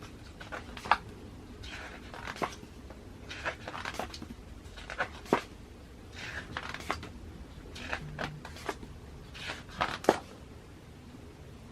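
Pages of a glossy magazine being turned one after another, each turn a short papery swish or snap, roughly once a second.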